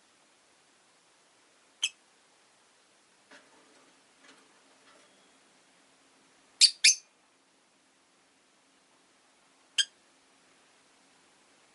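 Rosy-faced lovebirds giving short, sharp chirps: a single chirp, then a quick pair, then one more, with long pauses between them.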